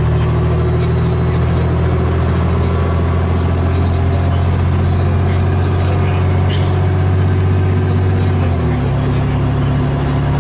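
Cummins L10 diesel engine of a Leyland Olympian bus, heard from inside the saloon, running steadily with a low droning note that dips slightly in pitch near the end.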